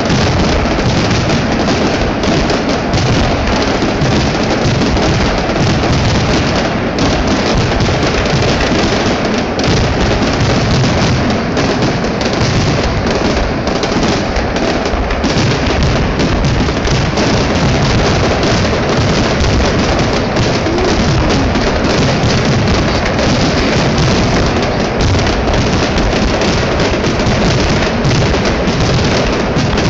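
Fireworks finale: a dense, unbroken barrage of shell bursts and crackling, heard from almost directly beneath the launch site.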